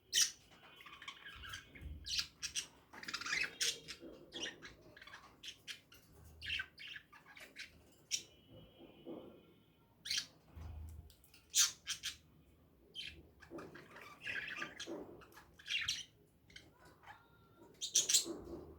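Birds squawking and chirping in short, sharp, irregular calls.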